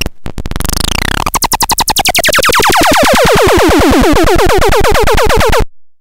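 TRAKANDAX handmade electronic noise box stuttering briefly, then running a fast train of falling-pitch chirps that grows quicker while sliding lower in pitch, cutting off suddenly near the end.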